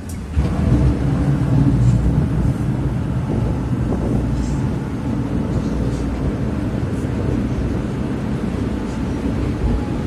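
Ferry boat's engine running under way, a steady low rumble that comes up sharply a little under half a second in.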